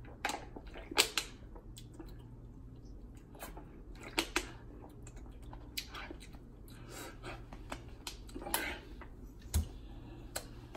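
Scattered small clicks and crinkles from a plastic water bottle being drunk from and handled, its cap twisted, over a low steady hum. A few clicks stand out, one about a second in and another about four seconds in.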